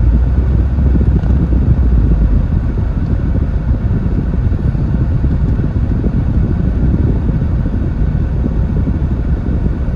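MG TF sports car heard from inside its cabin: a steady low engine and road rumble as it moves slowly.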